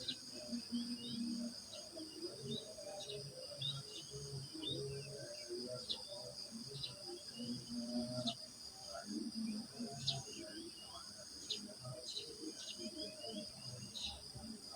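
Crickets trilling steadily at a high pitch, with birds giving many short chirps and calls over it. Lower-pitched irregular sounds come and go underneath.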